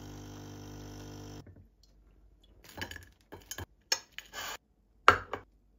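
Coffee machine's pump humming steadily as coffee pours into a cup, stopping about a second and a half in. Then a table knife scraping across bread and clicking against a plate as cream cheese is spread, with a sharp clink near the end.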